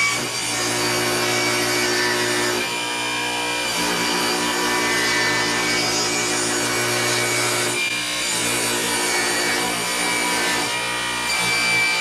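Table saw running and ripping boards lengthwise. The motor's steady tone shifts briefly about three and eight seconds in.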